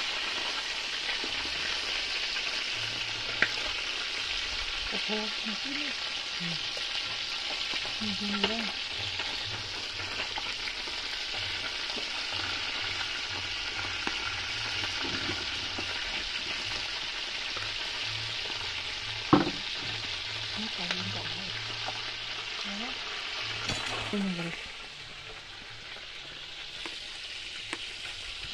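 Whole tilapia deep-frying in a large pot of hot oil, a steady loud sizzle with a few sharp clicks. The sizzle drops away near the end.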